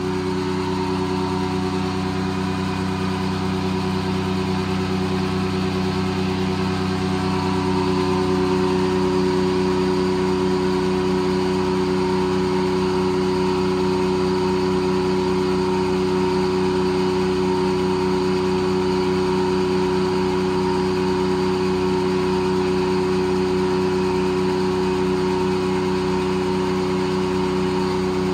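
Circle sawmill running at its operating speed of about 525 RPM with no log in the cut: a steady drone from the mill's power unit and the large circular saw blade spinning freely.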